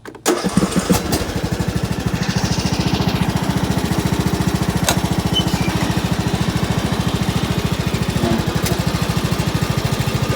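Small single-cylinder-type riding lawn mower engine that cuts in suddenly, then runs steadily with a rapid, even chugging beat.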